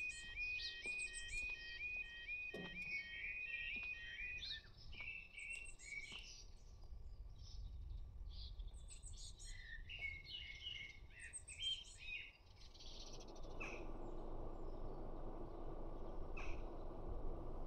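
Level crossing yodel alarm warbling in a fast, even repeating pattern as the barriers come down, stopping about four seconds in. Birds chirp throughout, and from about thirteen seconds in a steady low rumbling noise rises and holds.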